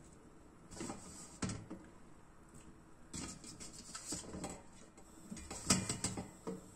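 Small bulgur meatballs dropped one at a time into a steel pot of hot water, with irregular soft plops and light knocks against the pot and tray. The loudest comes near the end.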